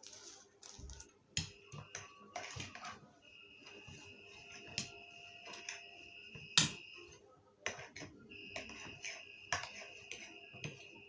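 Utensils clicking and knocking against a bowl while spicy fire noodles are stirred and mixed with their sauce, one sharper knock a little past the middle. A faint steady high-pitched tone comes and goes behind it.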